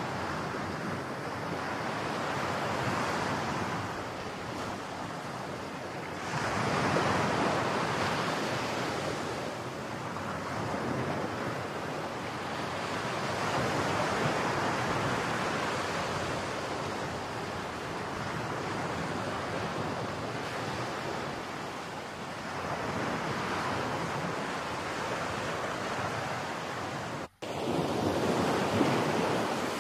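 Rushing wind and rough surf mixed with wind buffeting the microphone, swelling and easing every few seconds. Near the end it cuts out for an instant, then resumes.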